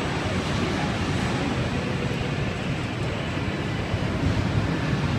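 Steady low rumbling din in a large indoor amusement park hall.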